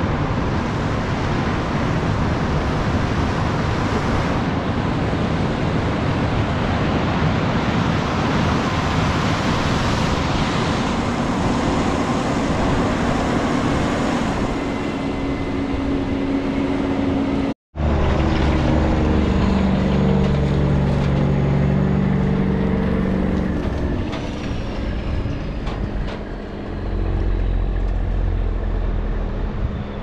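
Large diesel harvest machinery running: a steady wash of machine noise, then, after an abrupt cut a little over halfway through, an engine drone with steady low hum tones that shift in pitch a few times.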